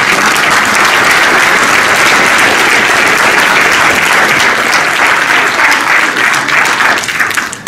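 Audience applauding: dense, steady clapping that starts at once and dies away near the end.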